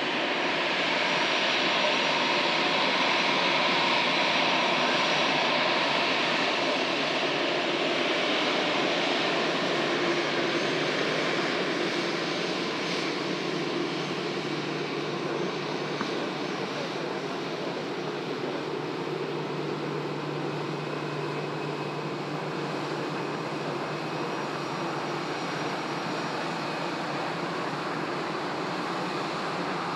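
Airbus A321 airliner's jet engines running at taxi power as it rolls past, a steady rushing whine. It is loudest in the first several seconds and eases a little after.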